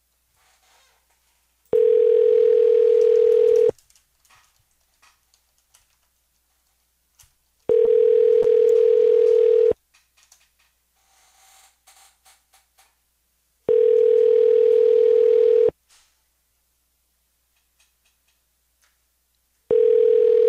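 Telephone ringback tone of an outgoing call placed through Google Voice, ringing unanswered: a steady, slightly warbling tone, two seconds on and four seconds off, repeating four times.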